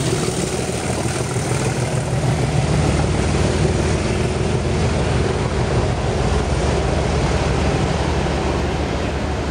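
Class 37 locomotive's English Electric V12 diesel engine working as the train pulls away, a steady drone that eases slightly near the end.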